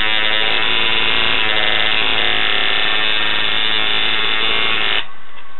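Tattoo machine buzzing steadily as the needle works the skin, cutting off abruptly about five seconds in.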